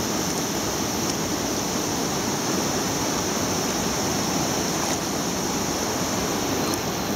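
Steady rush of river water flowing over a rocky bed, an even noise with no distinct splashes.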